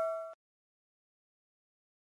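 The ringing tail of a bell-like 'ding' sound effect from the subscribe-button animation fades and cuts off about a third of a second in. Digital silence follows.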